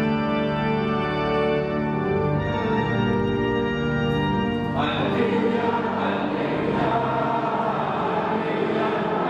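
Church organ holding sustained chords, which cut off sharply about halfway through. Sung voices take over, with the priest chanting at the lectern microphone.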